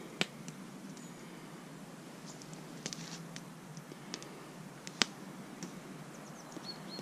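Campfire crackling: scattered sharp pops and clicks, with a small cluster about three seconds in, over a faint steady hiss.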